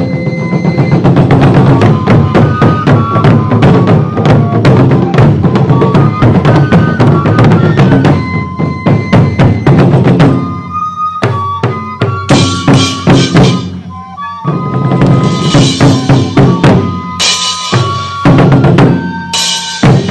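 Taiko drums beating steadily under a melody of held, stepping notes. In the second half the drums drop out for stretches, leaving the melody alone, and come back near the end.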